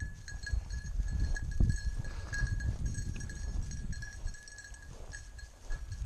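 Footsteps swishing through dry wheat stubble and prairie grass, with wind rumbling on the microphone, over a faint steady high ringing.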